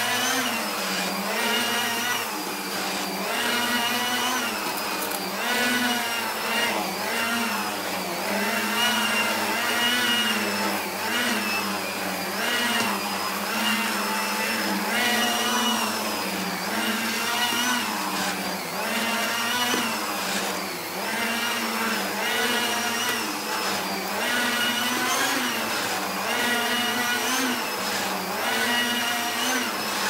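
Numatic Henry HVR200 vacuum cleaner's 620 W single-speed motor running, drawing air through an Airobrush air-driven turbo brush as it is pushed back and forth over a rug. The steady whine rises and falls in pitch with each stroke, about every two seconds.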